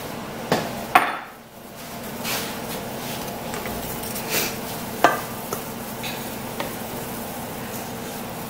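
Kitchen clatter: a few sharp knocks and clinks as things are handled and set down around a stainless steel mixing bowl, over a steady low hum. Near the end a spoon starts stirring buttermilk into biscuit flour in the bowl.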